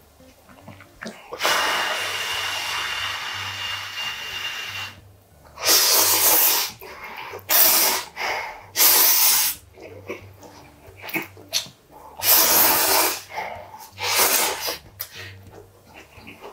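Teumsae spicy instant ramen noodles slurped, with one long pull near the start and then several shorter slurps and sharp puffing breaths.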